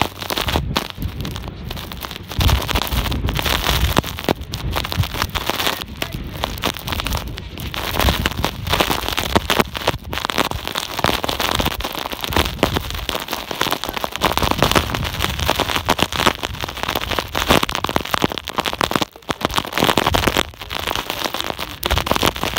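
Strong gusting wind in a blizzard buffeting the microphone: a loud, crackling rush of noise that surges and drops with each gust, with wind-driven snow hissing.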